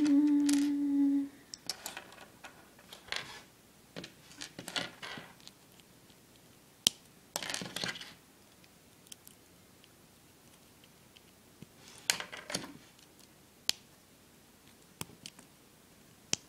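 Lego droid minifigure pieces being fitted together and handled on a wooden table: scattered light plastic clicks and short rustling scrapes with long quiet gaps between them. A short hummed note opens it.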